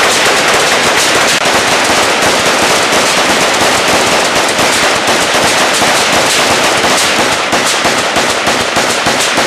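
Two AK-pattern rifles firing together: a fast, unbroken stream of overlapping gunshots.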